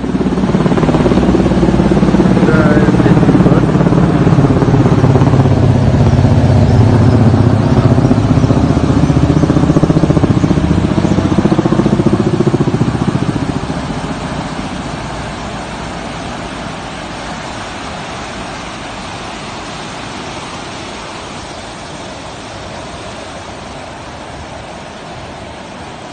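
Fast, muddy river water rushing through rapids and pouring into a narrow rock gorge: a loud, deep, steady rush. About halfway through it becomes softer and hissier.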